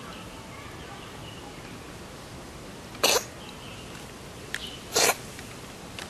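Orange tabby cat sneezing twice, two short sharp sneezes about two seconds apart.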